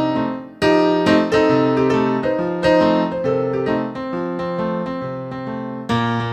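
Instrumental keyboard music without vocals: struck chords and notes that ring and decay, with a short dip in level just before a new chord about half a second in.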